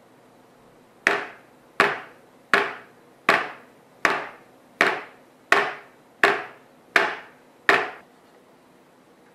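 Ten sharp knocks in an even rhythm, about three quarters of a second apart, each dying away quickly.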